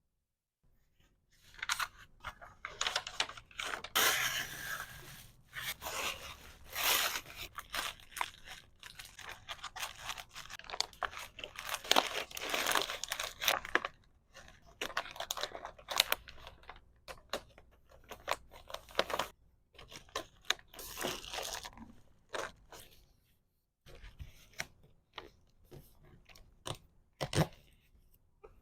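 Plastic packaging being handled: crinkling, rustling and tearing in irregular bursts with short pauses.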